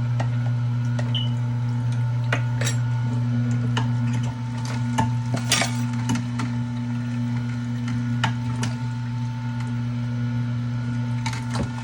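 Electric juicer motor humming steadily, with scattered sharp clicks and knocks of hard parts being handled over it. The hum drops a little about four seconds in.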